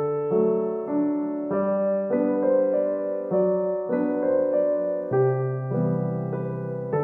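Background piano music: a slow melody of single notes over held low chords, changing about once a second.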